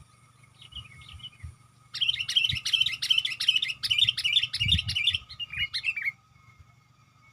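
Sooty-headed bulbul (kutilang) calling: a few faint chirps, then about two seconds in a loud, rapid run of chirping notes lasting some four seconds.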